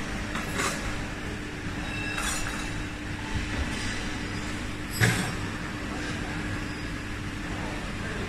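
Face-mask production machinery running: a steady mechanical hum with a constant low tone, a few light clicks, and one sharp knock about five seconds in.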